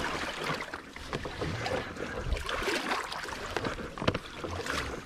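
Water splashing and sloshing in irregular bursts around an electric dirt bike bogged down in a deep trail water crossing.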